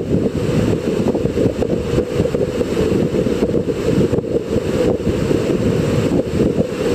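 Steady, loud rush of a big whitewater river rapid, a deep even roar of churning water.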